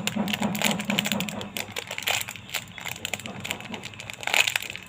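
A squishy toy in its plastic packaging being handled: irregular crinkles and clicks, with a louder crackle about four seconds in.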